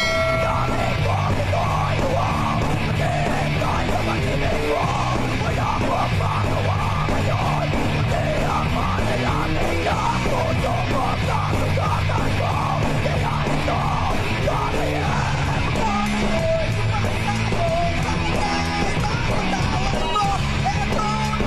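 Rock music with electric guitar and shouted vocals, loud and steady throughout.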